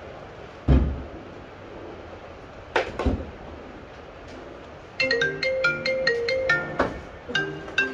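A heavy thud and a few sharp metal clicks as parts are handled at the front of an LS V8 block during a timing-chain install, then a marimba-like ringtone tune starts about five seconds in and keeps repeating.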